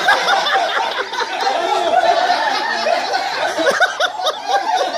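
A roomful of people laughing hard together, several voices overlapping.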